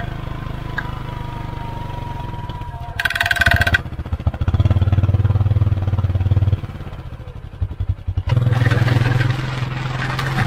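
Polaris Ranger UTV engine running under load as it drags a spiked box blade through soil and sticks, the engine note swelling and easing. A short loud rasping burst comes about three seconds in, and scraping noise returns for the last couple of seconds.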